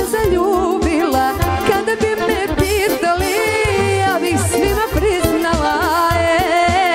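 Folk band playing lively kolo dance music: a fast, ornamented melody over a steady pulsing bass beat.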